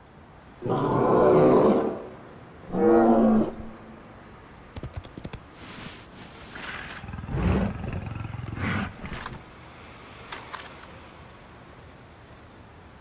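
Cartoon dinosaur roar sound effects: two loud roars in the first few seconds, then a run of quieter clicks and rumbling bursts.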